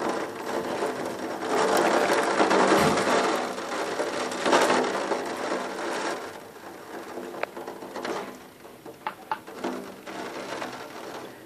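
Storm wind and rain buffeting a window in a dense rattling rush that swells for several seconds and then eases. A few sharp clicks come near the end.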